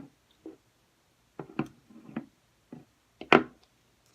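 Several light clicks and knocks, with one louder knock a little over three seconds in: slime and putty containers being picked up and set down.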